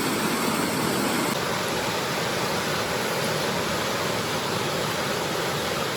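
Steady rush of falling water from a waterfall, the constant roar of High Falls on the North York River.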